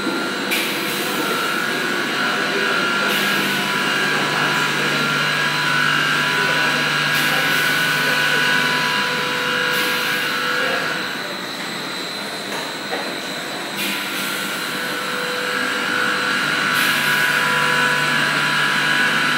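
Automatic bucket filling line running: a steady machine whir of conveyors and motors with several constant tones. A high hiss comes and goes every few seconds.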